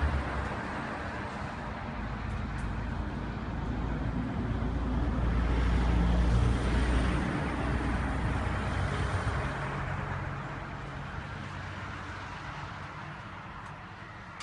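A motor vehicle going past: engine hum and road noise, loudest about six seconds in, then fading.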